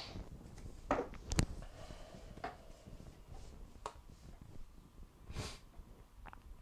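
Quiet room with two short breaths through the nose, about a second in and again near the end, and a few light clicks and taps as a tarot deck and a crystal are handled on a table, the sharpest click about a second and a half in.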